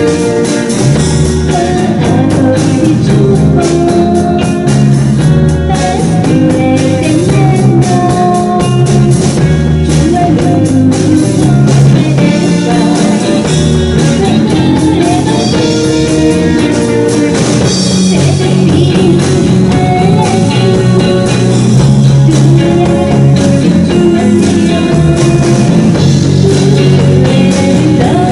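Live rock band playing loudly: electric guitars and a drum kit, with a woman singing.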